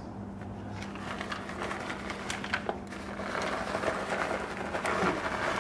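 Plastic bag of shredded cheddar crinkling as it is handled and shaken out over macaroni in a foil pan, the cheese shreds falling onto the pasta. The rustling grows thicker about halfway through, over a steady low hum.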